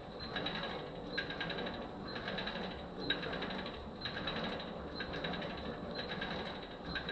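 Kayak ergometer worked with steady paddle strokes: a continuous whir from the flywheel, and on each pull a burst of rapid clicking from the cord and freewheel mechanism, about once a second.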